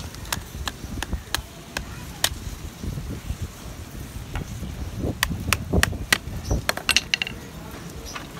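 Screwdriver being hammered and pried into a green coconut's husk: a string of sharp clicks and knocks, sparse at first and thickest about five to seven seconds in.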